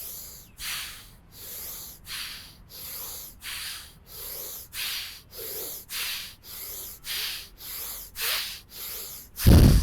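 Forceful rhythmic bellows breathing of bhastrika pranayama: quick, even breaths in and out, about two a second, some twenty strokes in all, with one louder, heavier breath at the very end.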